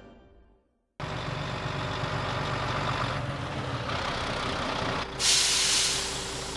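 Large truck engine running steadily, starting about a second in, with a loud hiss of air brakes about five seconds in.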